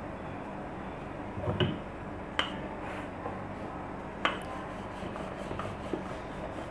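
Wooden rolling pin rolling out a ball of paratha dough on a floured board, with three sharp knocks as the pin and hands meet the board, over a steady low background hum and hiss.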